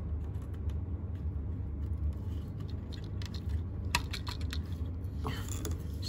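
Scattered light clicks and rustles of hands handling a small plastic multi-wire connector and its wires while plugging it onto a door access keypad's circuit board, with a few sharper clicks about four seconds in and again about a second later.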